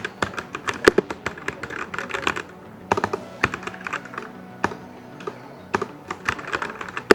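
Typing on a Portronics Hydra 10 mechanical keyboard: quick runs of key clicks and clacks in bursts, broken by short pauses.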